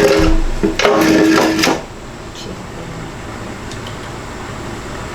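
Metal engine parts clanking and scraping with a brief metallic ring during the first couple of seconds, then a few faint clicks.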